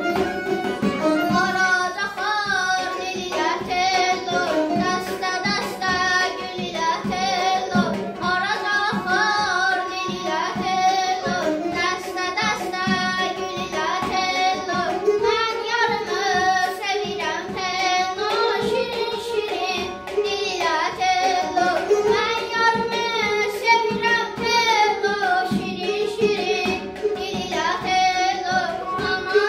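A child singing an Azerbaijani folk song over instrumental accompaniment with a regular drum beat.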